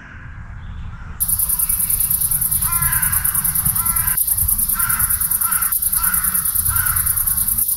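Evening nature sounds: a loud, fast, evenly pulsing high chirring of insects starts about a second in, and a bird calls harshly several times over it.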